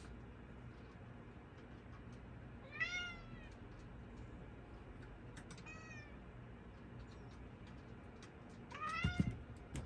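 British Shorthair–Ragdoll mix cat meowing three times, a few seconds apart. Each meow is short and rises then falls in pitch, and the middle one is fainter.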